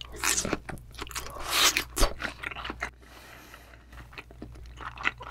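Close-miked chewing of a thick, soft slice of raw yellowtail belly sashimi dipped in sesame-oil sauce: wet bites and many short sharp mouth sounds, loudest about two seconds in, easing off for a moment before more chewing.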